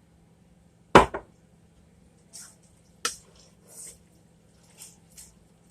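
A spoon mixing sauce-coated spaghetti with cheese: a loud knock against the dish about a second in, a second sharper knock around three seconds, and several soft wet squishing sounds of the pasta being turned.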